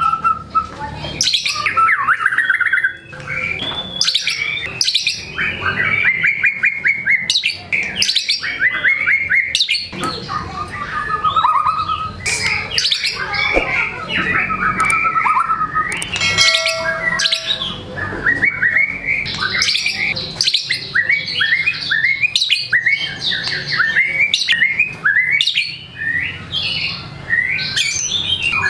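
White-rumped shama (murai batu) singing hard and without pause: a fast, varied run of whistles, trills, sweeping notes and sharp clicks that strings together copied calls from its repertoire. A little past the middle it holds one steady note for about a second and a half.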